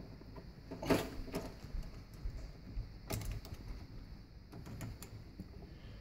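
Scattered clicks and knocks of pliers and a metal hose clamp against a garbage disposal's drain inlet as a ribbed plastic dishwasher drain hose is worked onto it; the sharpest come about a second in and about three seconds in.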